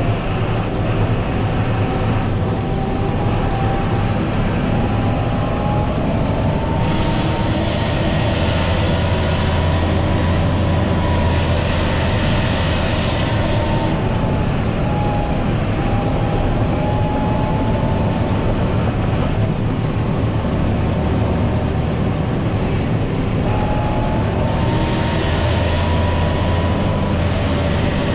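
John Deere 7530 tractor's diesel engine running steadily under plowing load, heard inside the cab, with a thin whine that drifts slightly up and down in pitch. Twice, about seven seconds in and again near the end, a louder rushing hiss swells for several seconds along with a heavier low hum.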